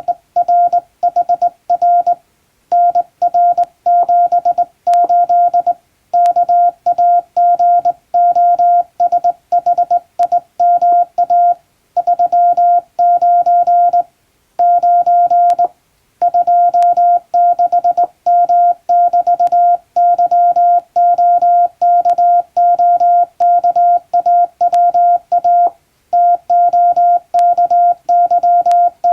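Morse code sent by hand on a straight key, heard as a single steady mid-pitched beep keyed on and off in dots and dashes, with short pauses between letter groups.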